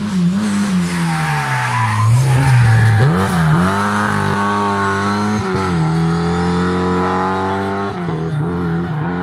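Rally car engine running at high revs. Its pitch falls and rises sharply as the driver lifts, brakes and changes gear, with another sudden drop at a gear change about halfway through.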